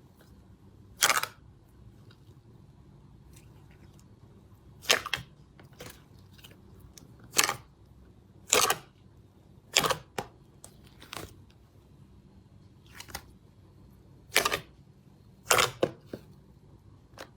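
Slime being pressed and stretched by hand, with a dozen or so sharp pops and clicks at irregular intervals as air pockets in it burst.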